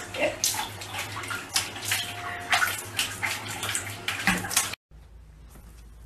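Water splashing and sloshing in a plastic bucket as a puppy is bathed in it, in uneven bursts that cut off suddenly about five seconds in.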